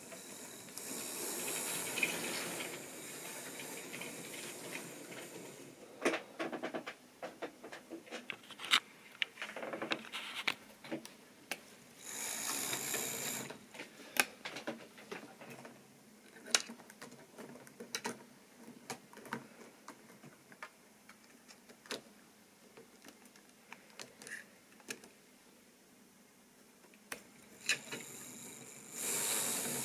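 Model railway train running on sectional track: a model tank locomotive's motor and its wagons' wheels make irregular clicks over rail joints and points. There are spells of whirring hiss about a second in, about twelve seconds in and near the end.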